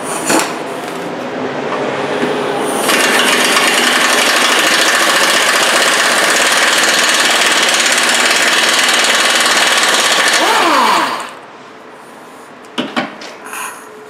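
Pneumatic air tool running on the skid plate bolts, a fast, loud rattle that grows louder about three seconds in and runs for about eight seconds. It then winds down with a falling pitch and stops, followed a little later by a couple of light clicks.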